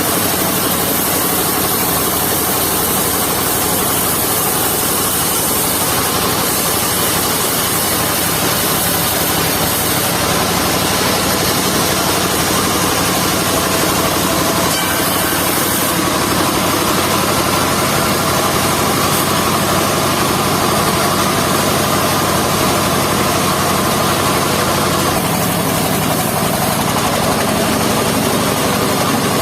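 Engine-driven mobile circular-saw sawmill running steadily, its tone shifting a few times.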